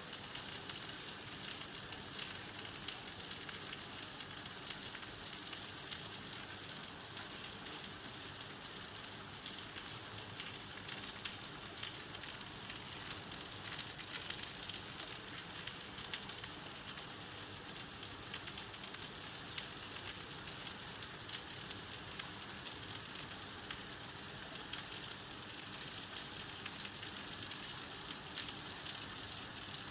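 Steady rain falling, a dense patter of drops on hard surfaces.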